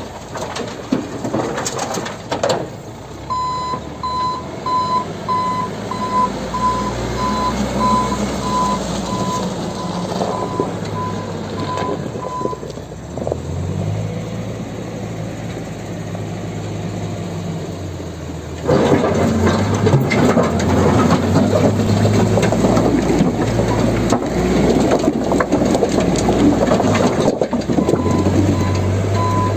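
Volvo backhoe loader's diesel engine working under load, with a reversing alarm beeping about twice a second for several seconds and again near the end. A few knocks come near the start, and about two-thirds of the way through the engine suddenly runs louder and harder.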